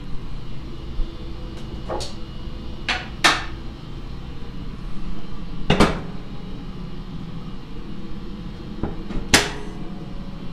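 The hood of a Mitsubishi Lancer Evolution VI being lowered and shut: a few separate knocks and clicks, the heaviest about six seconds in, and another sharp click near the end, over a steady low hum.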